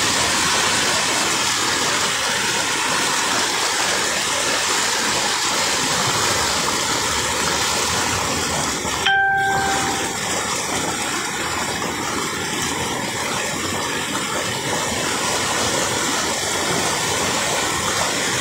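Floodwater rushing across a submerged road: a loud, steady rush of water. About halfway through, the rush dips for a moment under a short beep.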